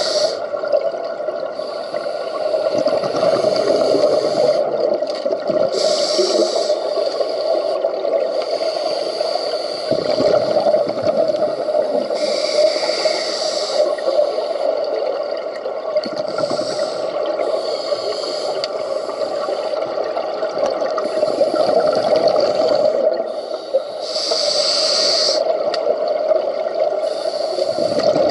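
Scuba breathing through a regulator underwater: a hiss on each inhalation every few seconds, with gurgling exhaled bubbles between, over a steady underwater background noise.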